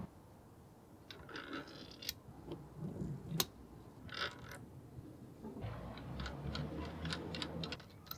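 Small metal clicks and clinks, a few at a time, as a wire brush wheel, its flange washer and nut are fitted by hand onto a Metabo bench grinder's spindle, with a quick run of small clicks near the end.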